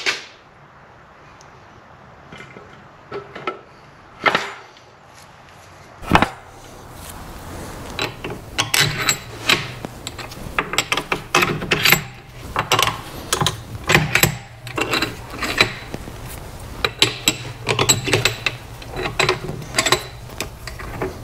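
Hand-work clatter on a Corvair flat-six's aluminium crankcase: a few separate knocks in the first six seconds, then a long run of quick metallic clicks and rattles as the long steel case bolts and nuts are handled against the block.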